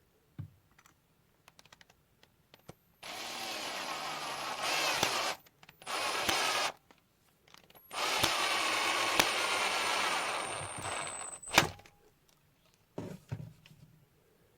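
A small electric power tool running in three bursts, the longest about three and a half seconds, its motor pitch wavering as it works, followed by a sharp click. Light handling knocks come between the bursts.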